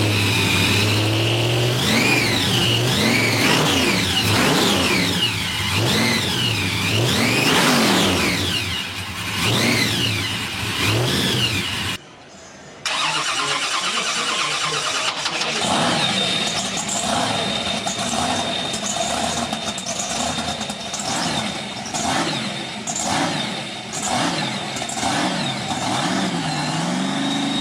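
Muscle car engines revving up and down over and over. After a short break about twelve seconds in, an engine runs on with a steady high whine and uneven blips of throttle.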